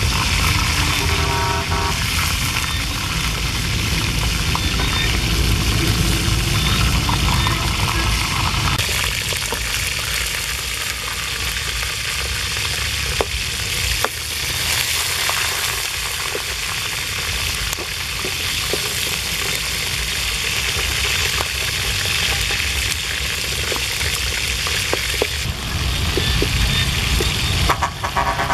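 Hot oil sizzling steadily in a steel wok as frogs and birds fry over a wood fire, with a ladle scraping and clicking against the pan as they are stirred.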